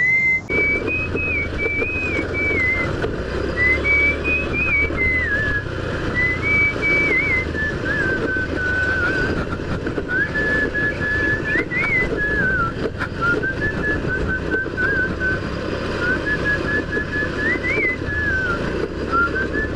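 A whistled tune, one clear melody line stepping up and down in short phrases, over the steady low running and road noise of a scooter ridden along a rough dirt track.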